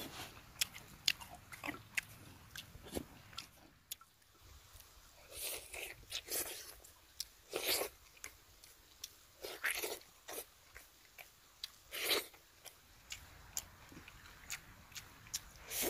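Close-up eating sounds: several short crunchy bites and chews among small clicks, with no speech.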